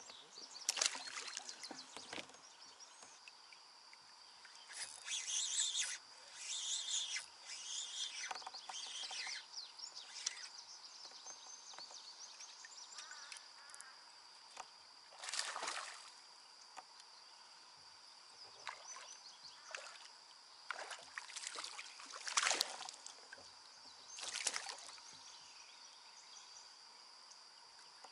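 Kayak paddle dipping and splashing, with water sloshing against the hull. The splashes come in separate bursts a few seconds apart, and a steady high tone runs underneath.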